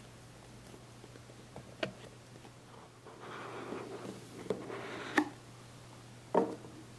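Packaging being handled during an unboxing: about two seconds of rustling in the middle, and four sharp clicks or taps spread through, over a faint steady low hum.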